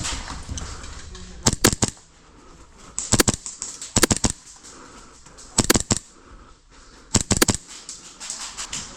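Army Armament R601-3-Y Alpha Race gas blowback airsoft pistol firing in five quick groups of two or three sharp cracks.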